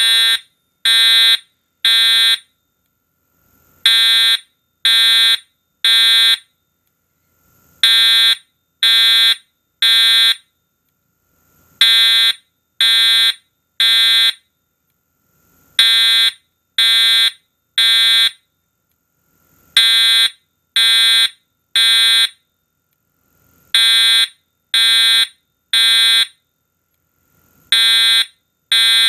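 Edwards Integrity 757-5A-TW fire alarm horn/strobe sounding the code-3 temporal evacuation pattern: three loud half-second horn blasts about a second apart, then a pause, with the group repeating every four seconds.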